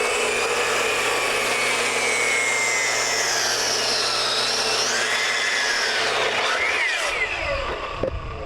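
Electric power saw cutting wood: the motor whines steadily, its pitch sags partway through the cut, and about seven seconds in it is switched off and winds down.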